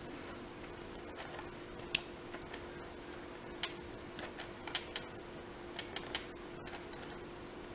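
Small, irregular metallic clicks of a disc detainer pick turning the discs inside a Rolson disc detainer padlock, with one sharper click about two seconds in; the lock is not opening.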